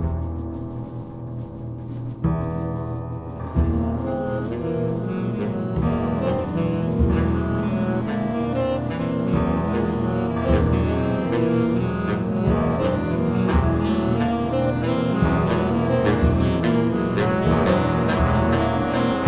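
Instrumental jazz-orchestra music with a prominent bass line under sustained pitched instruments, thin at first and filling out a few seconds in.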